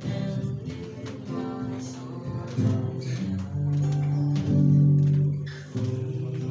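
Acoustic guitar strummed as accompaniment to voices singing a hymn, with long held sung notes from about three and a half to five and a half seconds in, the loudest part.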